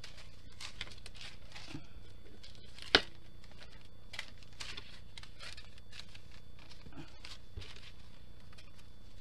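Small plastic bags of diamond-painting drills rustling and crinkling as they are handled, with one sharp click about three seconds in.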